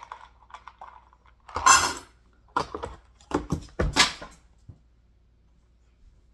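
Dry dog kibble poured into a dog bowl in a short rush, followed by several clattering knocks of bowls and the food container.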